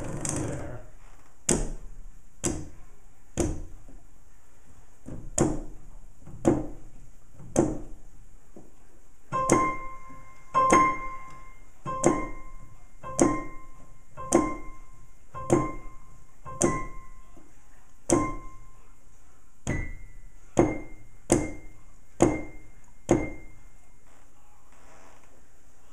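Mechanical key noise of a Roland RD-800 stage piano's keybed: keys clicking and thunking as they are struck one at a time, about once a second, about nineteen strikes, stopping a few seconds before the end.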